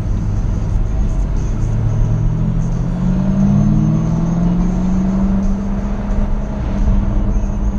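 Jaguar F-Type SVR's supercharged V8 pulling under acceleration. The engine note climbs for a couple of seconds about a second in, then holds steady over a low road rumble.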